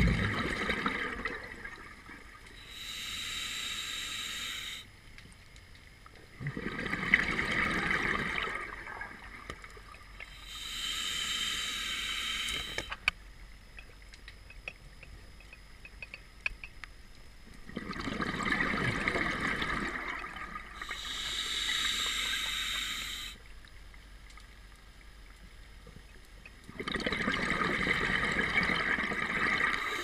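Scuba diver breathing through a regulator underwater, slow and regular: a hiss of air on each inhale followed by a rush of exhaled bubbles, about three breath cycles with a longer pause near the middle.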